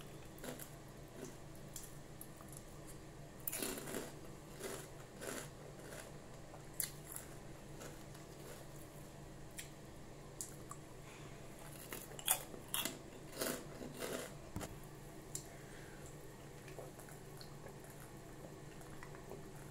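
Close-up crunching and chewing of chicharon (fried pork rinds), in irregular clusters of crisp crackles with quieter chewing between.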